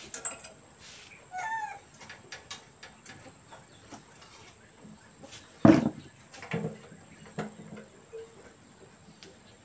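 Scattered clicks and knocks of parts and tools being handled while a small water-pump engine is reassembled, with one loud knock a little past halfway. A short bird call comes about one and a half seconds in.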